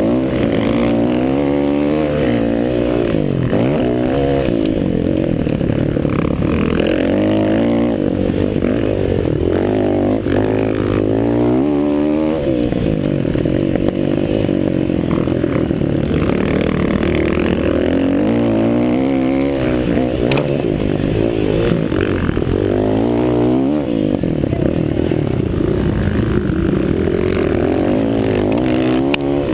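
Several motocross bikes' engines racing, revving up and down over and over as the riders accelerate and back off, with several engines sounding at once.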